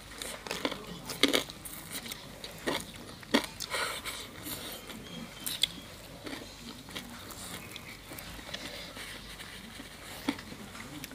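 Close-up eating sounds: people chewing crisp food, with a handful of scattered sharp crunches and bites.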